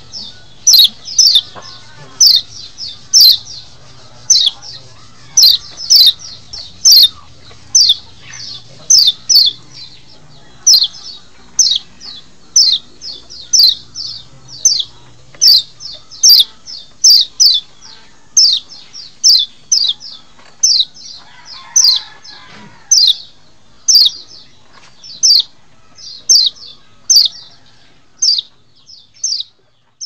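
A Lombok kecial (white-eye) calls repeatedly as a masteran lure call. Its short, sharp, high chirps sweep steeply downward, often in quick pairs or triplets, about two to three a second, without a break.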